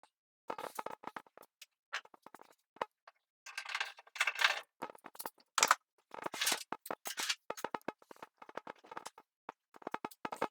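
A quick run of sharp knocks and clicks with a few short scraping stretches, broken up by sudden silences: workshop handling noise as clamps and tools are worked on a wooden desktop.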